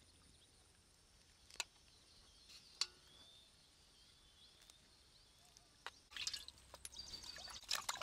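Mostly near silence with two faint clicks early. From about six seconds in comes water splashing and sloshing in a metal pot as a hand washes small cleaned fish.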